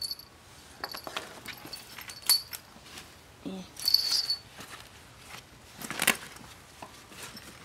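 Small metal chain on a fabric pet carrier jingling and clicking in short jangles, with rustling and handling knocks as the carrier is moved. A sharp knock comes about six seconds in.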